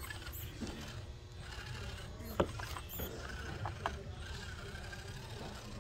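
Micro RC rock crawler's small electric motor and gear train running under load as it climbs rocks, a faint mechanical whine with ratchety clicking. A sharp click or knock about two and a half seconds in is the loudest, followed by a few lighter clicks.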